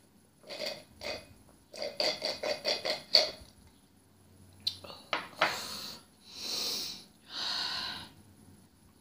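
Drink slurped through a plastic straw from a nearly empty wine glass, first two short sips, then a quick run of about eight gurgling pulls. A few sharp clicks as the glass is set down on the table, then three breaths, each about a second long.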